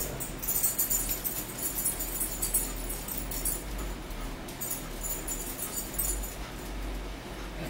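High-pitched metallic jingling in two spells, the first about three seconds long, the second about two, over a steady low hum.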